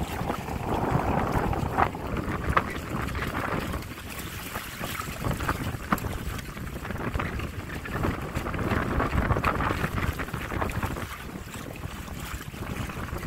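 Wind buffeting the microphone over water splashing and lapping against the hulls of a Windrider 17 trimaran under sail, the gusts and splashes swelling and easing.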